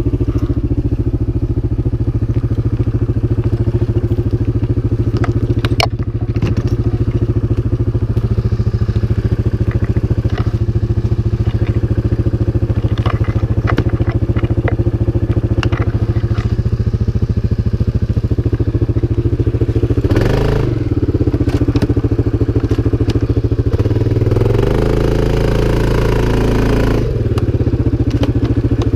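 CFMoto 500 ATV's single-cylinder engine running steadily, with scattered knocks and clatter over it. Near the end the engine pitch rises and falls twice as it is revved.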